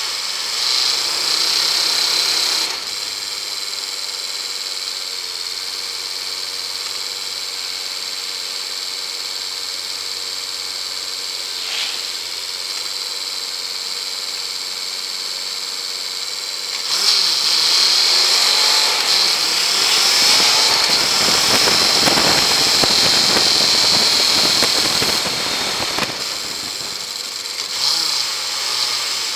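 Land Rover engine running as it drives along a wet woodland track, heard from a camera mounted outside on the bonnet, with wind rushing on the microphone. The rush swells louder and rougher for several seconds past the middle, with shorter swells near the start and the end.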